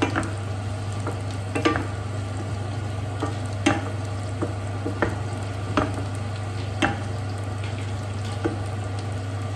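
A spoon stirring tomato-and-masala gravy as it fries in a pan, with irregular knocks and scrapes against the pan about once a second over a light sizzle. A steady low hum runs underneath.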